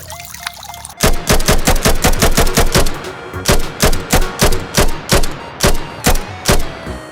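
Gunfire sounds: a rapid volley of shots about eight a second for two seconds, then slower single shots about three a second.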